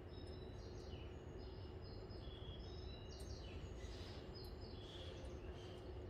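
A string of short, high chirps, some falling in pitch, sounding like bird calls. They carry over a steady hum and low rumble of station platform ambience.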